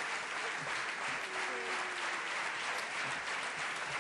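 Large audience applauding steadily, dense clapping throughout.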